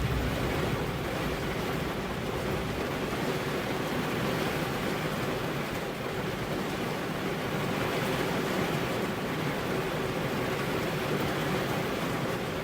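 Heavy rain falling steadily on a car's windows, an even hiss with no thunder.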